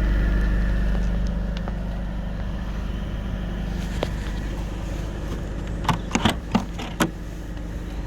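Mercedes C180 Kompressor's supercharged 1.8 petrol four-cylinder idling steadily through a brand-new exhaust. The engine sound eases a little about a second in. A few sharp knocks come close together near the end.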